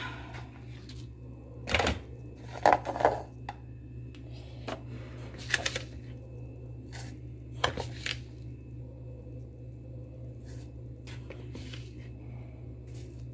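Kitchen handling noise while sugar is scooped with a plastic measuring scoop: a series of sharp knocks and clatters of the scoop and containers on the counter, loudest a few seconds in, then spaced out, over a steady low hum.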